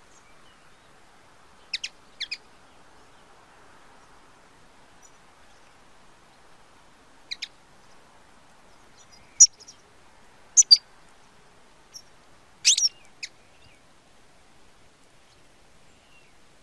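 European goldfinch giving short, sharp call notes in scattered groups of one to three, the loudest ones about ten to thirteen seconds in.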